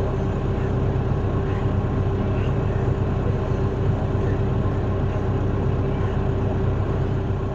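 Tractor engine running at a steady speed, an even hum with no change in pitch.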